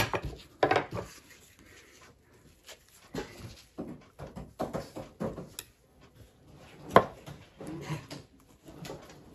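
Irregular scrapes and knocks of spiny prickly pear cactus fruit being scraped clean of its spines and cut apart, with one sharper knock about seven seconds in.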